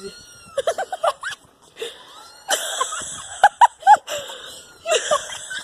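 Recorded cat meows played through a phone speaker: a string of short calls that rise and fall in pitch, over a steady hiss.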